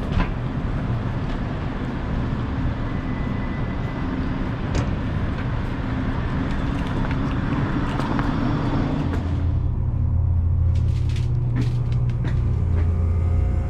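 Street traffic noise. About nine seconds in it gives way to a steady low machine hum, with a few sharp clicks.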